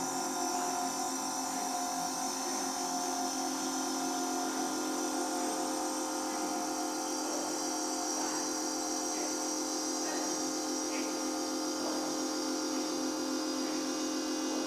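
Electronic soundscape of layered droning tones, including a high whine, held at an even level.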